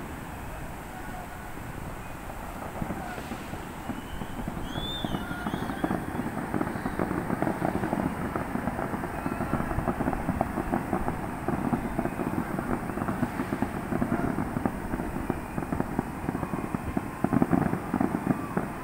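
Fireworks display: dense, continuous crackling and popping that builds up from about six seconds in and is heaviest near the end.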